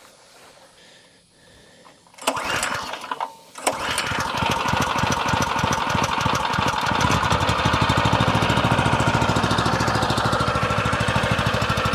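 Small gasoline engine on a portable water transfer pump being started: it fires about two seconds in, falters briefly, then catches and runs steadily with a fast, even beat.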